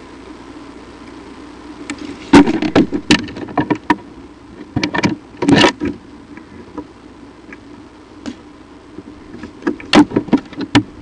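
An eagle moving in its stick nest close to the nest-cam microphone: three bursts of sharp cracks and knocks from the sticks, about two seconds in, around five seconds in and near the end. A steady low hum runs underneath.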